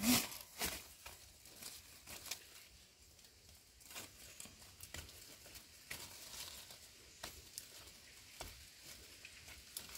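Light, scattered crackles and small snaps of dry leaves and twigs, as of rustling through forest litter. They are loudest in the first second.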